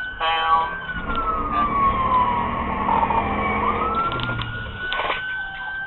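Police car siren wailing, its pitch rising slowly, falling for a few seconds and rising again, over engine and road noise during a pursuit. A brief blaring tone sounds about half a second in.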